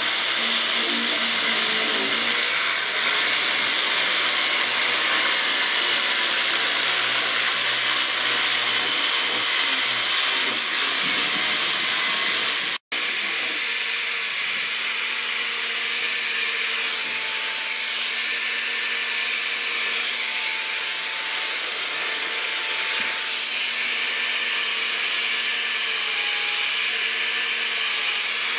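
A handheld electric jigsaw runs steadily while cutting rosewood. About halfway through it is cut off abruptly, and an electric angle grinder with a sanding disc takes over, running steadily as it sands the wooden chair seat.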